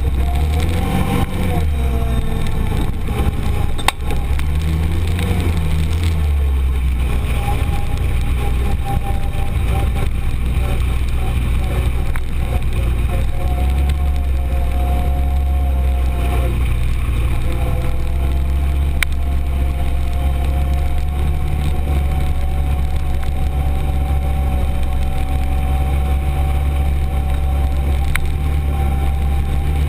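Arctic Cat Prowler 1000 UTV's 951 cc single-cylinder engine running under way over a dirt trail, heard from inside the open cab. Engine speed rises and falls a few times in the first several seconds, then holds steady. A few sharp clicks sound from the rough ride.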